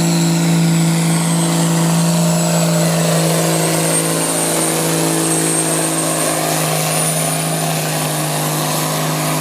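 Competition pulling tractor's engine held at steady high revs, a loud even drone with a thin high whistle over it.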